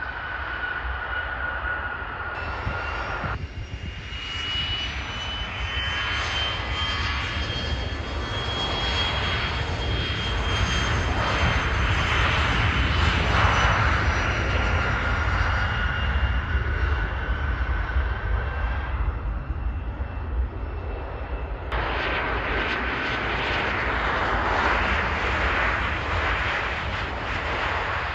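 Jet engines of airliners and a business jet on the runway: a steady low rumble with a high turbine whine over it, the sound changing abruptly twice where clips are joined.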